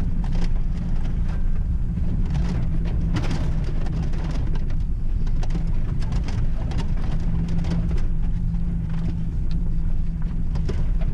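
Cabin noise of a Suzuki Grand Vitara driving over a rough dirt forest track: a steady low engine-and-road drone with scattered knocks and rattles from the bumpy ground.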